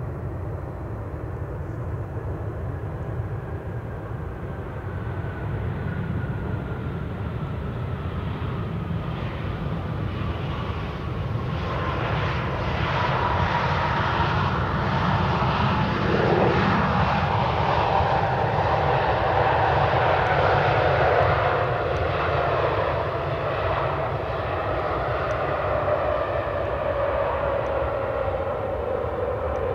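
Boeing 737-800's CFM56 jet engines running at low thrust as the airliner taxis by after landing. The sound is a steady rumble with an engine whine that falls slowly in pitch, and it grows louder toward the middle as the plane passes.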